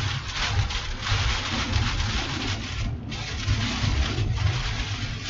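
Road noise heard from inside a car driving on a slick, wet dirt road: a steady low rumble under a hissing, splashing wash of water from the tyres that swells and dips, briefly easing about three seconds in.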